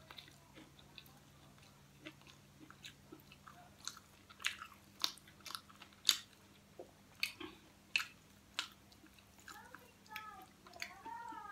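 Crispy fried pig head skin crackling and crunching as it is torn apart by hand and chewed, a scatter of sharp crunches that are loudest through the middle. Near the end there is a short wavering high-pitched call.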